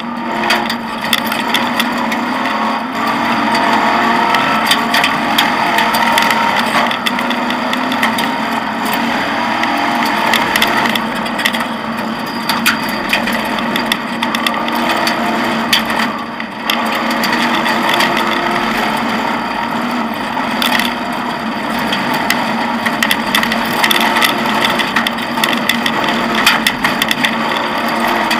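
Offroad rally car's engine running hard on a dirt track, heard from inside the cockpit, its pitch rising and falling with the throttle and gear changes. Constant rattling of the cabin and clattering knocks from bumps and stones over the rough surface.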